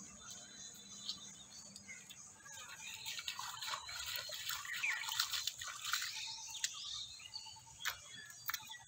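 Birds chirping and twittering, busiest from about two and a half seconds in, with a few soft splashes of feet wading through shallow pond water.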